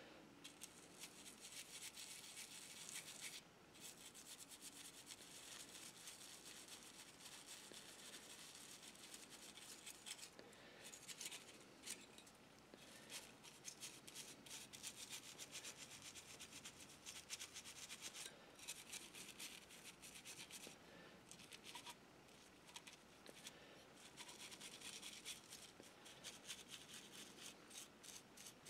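Faint toothbrush bristles scrubbing a brass model locomotive shell coated in cleanser paste. The rubbing is rapid and scratchy, broken by a few brief pauses, as tarnish is scrubbed off the metal.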